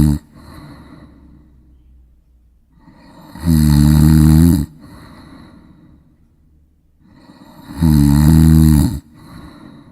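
A child snoring: two loud rasping snores, each about a second long and about four and a half seconds apart, with quieter breathing between them.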